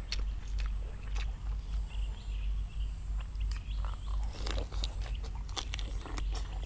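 Close-up chewing and lip-smacking of a person eating rice and curry by hand, with scattered short wet clicks, over a steady low rumble.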